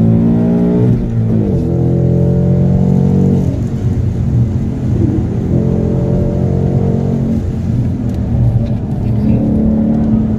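Exhaust of a 2018 Mustang GT's 5.0-litre V8 with active exhaust, the engine speed dropping and rising several times with steady stretches between.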